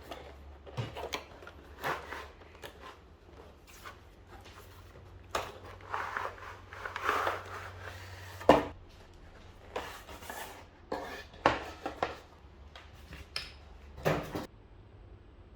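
Unboxing handling noise: packaging and a large keyboard being handled, with irregular rustling, scraping and clicks. A sharp knock comes about eight and a half seconds in, and it goes quiet shortly before the end.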